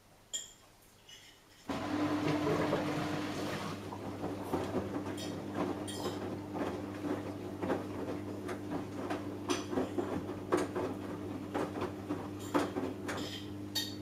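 Samsung Eco Bubble front-loading washing machine mid-cycle. About two seconds in, a steady electric hum starts suddenly, and water rushes and sloshes in the drum with irregular light knocks from the load.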